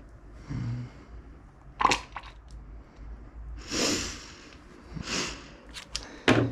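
Workbench handling noises: a few sharp knocks, the loudest about two seconds in and again near the end, and a couple of brief rustles, over a steady low hum.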